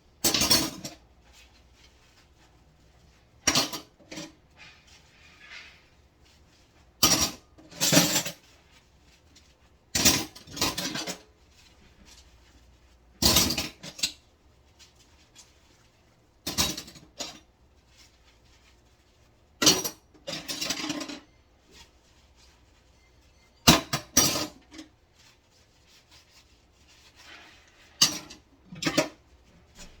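Dishes and cutlery clattering as they are handled, most likely being loaded into a dishwasher. There is a sharp clatter or a quick pair of clinks every two to three seconds.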